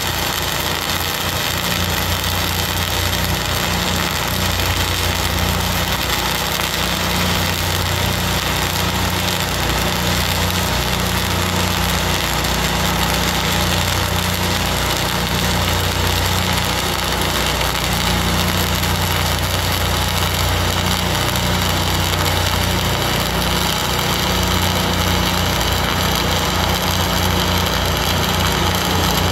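Flux-cored arc welding: 1/16-inch self-shielded wire burning in a steady, unbroken crackle and hiss during a continuous pass, fed from a Lincoln 305D engine-driven welder at about 25.5 volts. A steady low hum runs underneath, typical of the welder's engine running.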